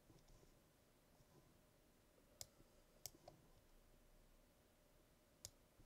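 Near silence broken by a few sharp computer mouse clicks, about two and a half, three and five and a half seconds in.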